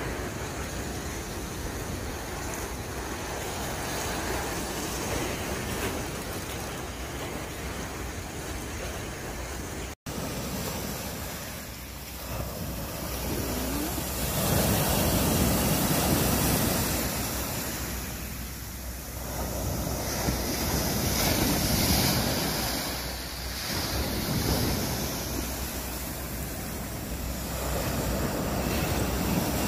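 Small bay waves breaking and washing in, with wind rumbling on the microphone. After a brief cut about a third of the way in, the wash swells louder every few seconds as the waves run up the sand.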